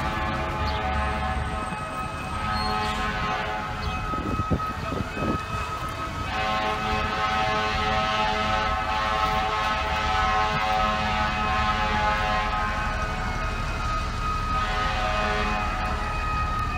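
Fire truck air horn blowing in long, held blasts, with a break about four and a half seconds in, over a wailing siren and a low rumble of traffic.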